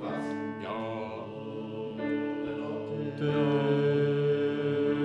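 Men's voices of a choir's tenor section singing long held notes unaccompanied, building into a fuller chord when a lower note comes in louder about three seconds in.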